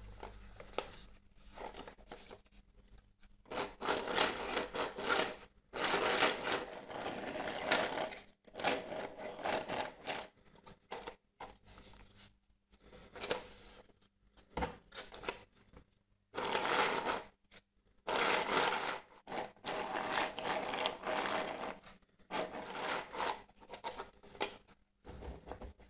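A 3D-printed plastic scale model of a Toyota 22RE engine being handled and turned over in the hands: irregular stretches of plastic rubbing and rattling, broken by short quiet gaps.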